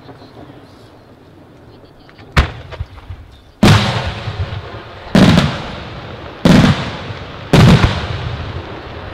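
Aerial firework shells bursting overhead: one sharp bang about two seconds in, then four loud booms a little over a second apart, each trailing off in a long rolling echo.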